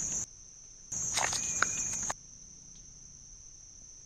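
High-pitched insect trill played as the sound of a beetle. It comes in two louder stretches, the first ending just after the start and the second running from about one to two seconds in with faint scratchy clicks, and a fainter trill carries on between and after.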